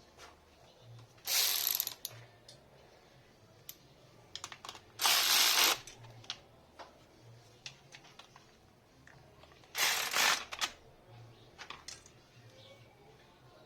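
Mechanic's hand tool ratcheting in three short bursts, about 1, 5 and 10 seconds in, with scattered clicks and light knocks between them.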